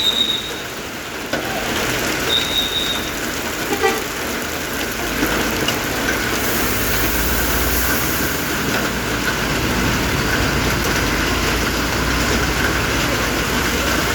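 Steady roadside traffic noise, with a vehicle passing about halfway through, and two short high-pitched beeps in the first few seconds.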